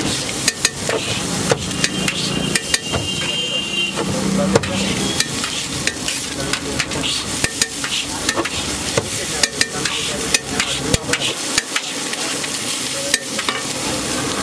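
Long steel spatula chopping and scraping egg mixture on a large flat griddle: many quick metallic clacks and scrapes at an uneven pace, over a steady sizzle of the frying food.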